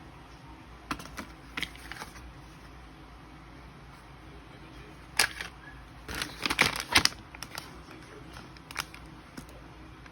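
Scattered small clicks and rattles of objects being handled, with a sharp click about five seconds in and a busier run of clatter a second later, over faint room tone.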